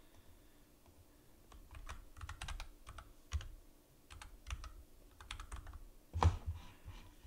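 Typing on a computer keyboard: a run of quick, uneven key clicks, with a louder one near the end.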